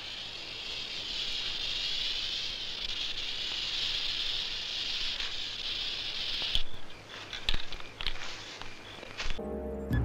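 A steady, high-pitched wavering whir, then several sharp clicks, with music starting near the end.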